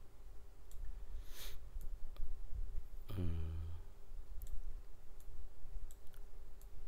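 Computer mouse clicking a scattered handful of times while dragging and setting controls, over a faint steady hum. A short wordless voiced murmur, falling in pitch, comes about three seconds in.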